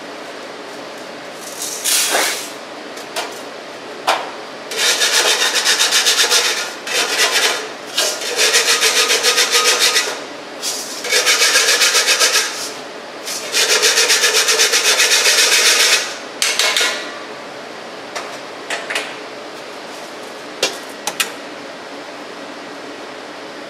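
Brass testing sieve being brushed out over a stainless steel bowl to clear retained aggregate: four bursts of rapid back-and-forth scraping strokes, a couple of seconds each, after a couple of sharp knocks, with a few small clicks near the end.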